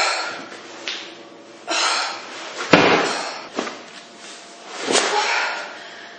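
Rhythmic heavy exhaling and thumps of a person working through exercise repetitions, about one every second or so, with one sharp thud about halfway through.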